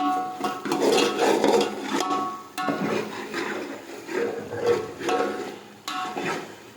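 A metal spoon or ladle scraping and knocking against a metal cooking pot as meat is stirred and fried in masala. The pot rings briefly with each knock. This is the bhuna stage, with the meat and masala being fried together until the ghee separates.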